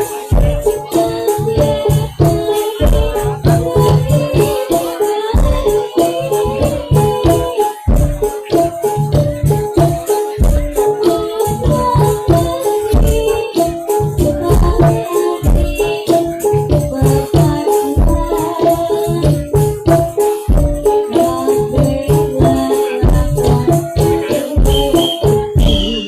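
Kobro Siswo Javanese folk-dance music played loud over a sound system: heavy, regular bass-drum beats under a repeating melody of short pitched notes, with bright rattling percussion.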